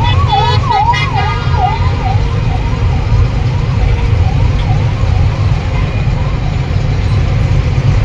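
Emergency vehicle siren wailing in quick up-and-down sweeps, about three a second, fading away after about six seconds. Underneath is a loud, steady low rumble of road and engine noise.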